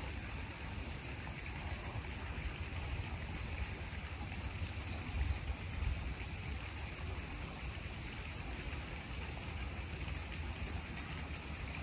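Faint steady background ambience: a low rumble with a soft hiss, swelling slightly twice about five and six seconds in.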